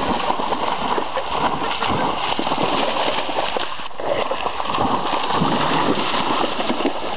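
Two Rhodesian ridgebacks running through shallow river water, their paws setting off a quick, uneven run of splashes over the rush of the water.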